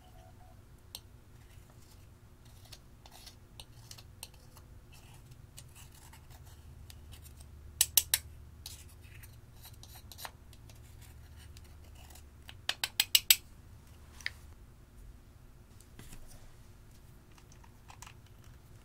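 Metal spatula scraping and digging pressed black eyeshadow out of its plastic compact: light scratching and crumbling, with a quick run of three sharp clicks midway and five more a few seconds later as the metal tool knocks against the compact.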